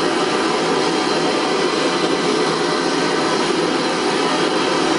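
Hand-held gas blowtorch burning with a steady hiss, heating a steel part to expand it for a tight interference fit.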